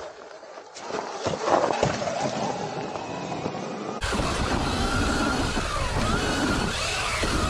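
Sur-Ron electric dirt bike dropping off a rock ledge, with a few knocks as it lands, the loudest about a second and a half in. From about four seconds in, heard from the handlebars, the electric motor's whine rises and falls over tyre and wind noise on the dirt trail.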